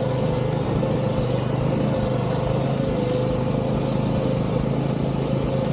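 Arctic Cat SnoPro 120 kids' snowmobile's 120cc engine running at a steady speed, a constant droning tone with no change in pitch.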